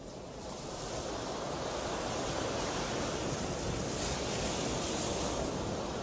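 Rushing water noise, without tones or rhythm, swelling up over about the first second and then holding steady.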